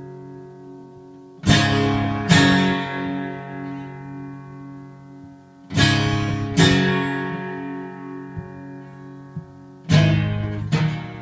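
Acoustic guitar strumming chords in an unaccompanied outro: three pairs of strums, each chord ringing out and slowly fading before the next pair.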